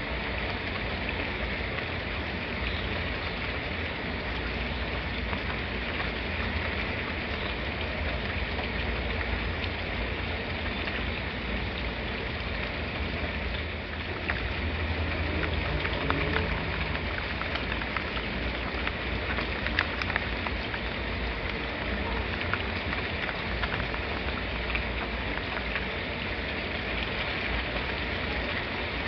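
Steady rain falling, a continuous hiss of drops with scattered sharper drop clicks. It grows a little louder for several seconds past the middle.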